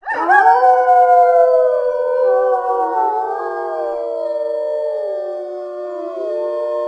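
A pack of wolves howling in chorus: several long howls at different pitches overlap, sliding slowly downward.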